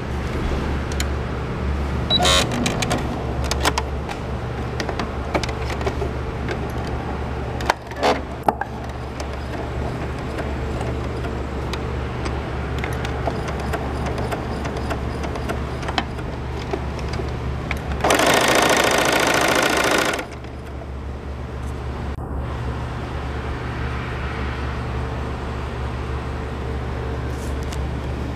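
Baby Lock electronic sewing machine running with its needle working up and down, with a few sharp clicks early on and a louder, faster run lasting about two seconds past the middle before it drops back to a lower steady sound.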